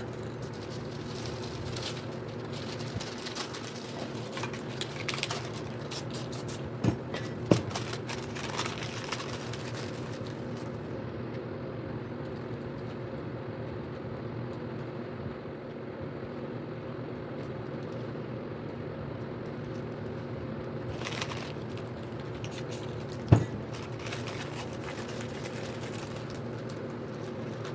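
Aerosol spray paint cans hissing in short spurts over a steady mechanical hum, with a few sharp knocks.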